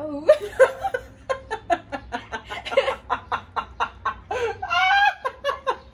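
A woman laughing hard in rapid short bursts, with a higher, drawn-out laugh near the end.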